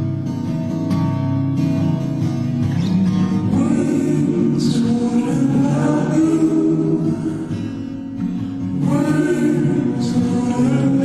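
A song playing: guitar with a singing voice that comes in about three seconds in, pausing briefly and resuming near the end.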